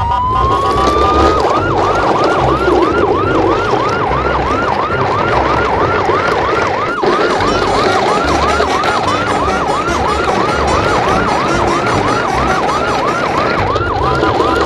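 Siren sounding: a rising wail over the first second or so, then a fast yelp of about three rises and falls a second that keeps going, over a low rumble.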